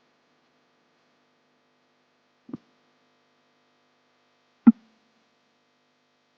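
Two short, sharp knocks about two seconds apart, the second louder, over a faint steady hum.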